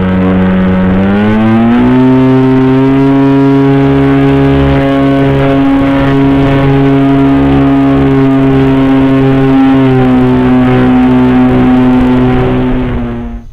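RC paramotor's propeller motor running at speed, a loud, steady droning buzz that rises in pitch about a second in as the throttle opens, dips slightly near the end, then cuts off suddenly.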